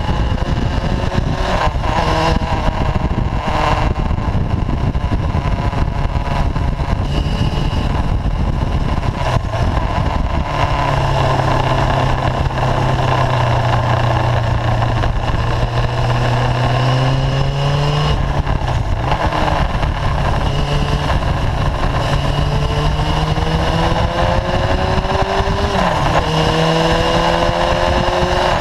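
Motorcycle engine running at road speed under heavy wind rush on the microphone. In the second half the engine pitch climbs steadily several times, dropping back sharply at each gear change.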